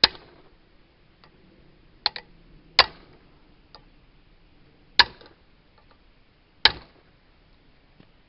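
Hammer striking a socket set on the valve spring retainers of an AMC 232 six-cylinder head: four sharp metallic blows about two seconds apart, with a quicker double tap and a few light clicks between. The blows knock loose valve keepers that are stuck in the retainers.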